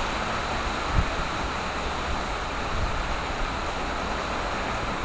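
Hurricane-force wind blowing steadily in a constant rushing noise, with a low rumble of wind buffeting the microphone. There is a brief low thump about a second in.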